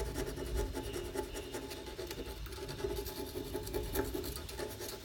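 Rapid, continuous scratching of a tool scraping surface rust off the metal bulb holder inside a motorcycle brake light.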